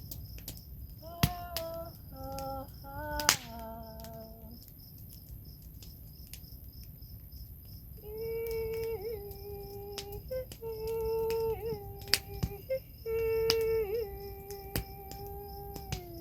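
A woman singing wordless, long held notes: a few short notes near the start, then long sustained tones with small wavering turns through the second half. Under the voice runs a steady, pulsing chirring of crickets, with scattered sharp clicks.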